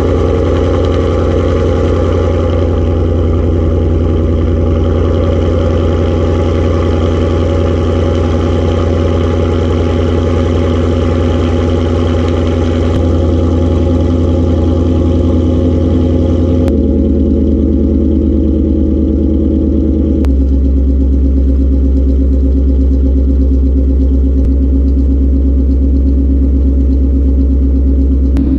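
2018 Mustang GT's 5.0 L Coyote V8 running under way at freeway speed with a steady drone. Its pitch steps lower three times, about 13, 17 and 20 seconds in, as the 10-speed automatic upshifts.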